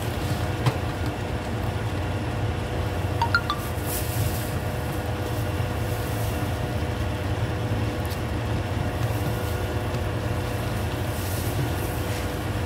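Commercial spiral dough mixer running steadily, with a low hum from its motor as the spiral hook works flour into a rough, shaggy dough in a stainless steel bowl. A few brief high clinks come about three seconds in.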